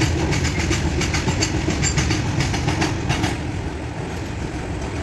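Goods train wagons running over the rail joints at high speed: a rapid clickety-clack over a heavy rumble. The clatter stops about three seconds in, leaving a quieter rumble.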